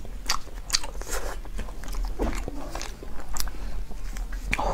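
Close-miked eating of chili-covered fish: chewing and biting with wet mouth smacks and a scatter of sharp clicks.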